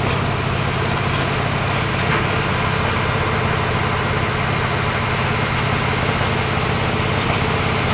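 An engine running steadily at idle, with an even low hum.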